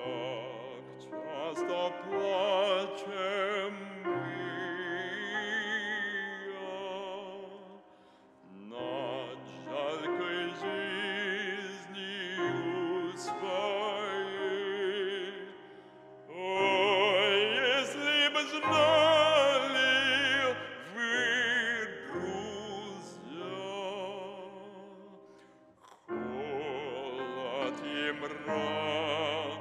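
Classical art song: a trained voice singing in long phrases with wide vibrato over piano accompaniment, with brief breaks between phrases about 8, 16 and 26 seconds in.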